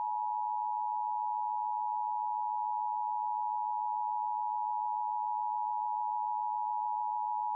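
Emergency Alert System attention signal: a steady two-tone alert tone, held unchanged for about eight seconds and cutting off at the very end, ahead of the spoken test message.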